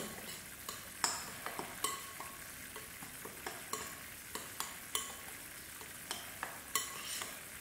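A metal spoon stirring a dry semolina and coconut mixture in a glass bowl, with irregular clinks and scrapes of the spoon against the glass, about one a second. Under it is a steady sizzle of sugar syrup and ghee bubbling in a frying pan.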